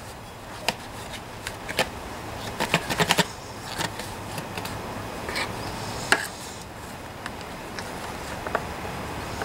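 Needle-nose pliers clicking and scraping inside a plastic recoil starter housing while the cover is handled, as pieces of a tangled pull rope are worked out. Scattered light clicks and knocks, with a quick run of them about three seconds in and a sharper knock about six seconds in.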